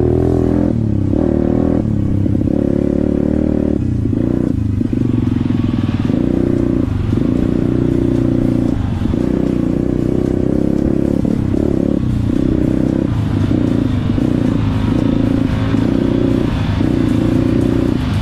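Off-road motorcycle engine running hard as the bike is ridden, the throttle shutting off briefly and opening again every second or so.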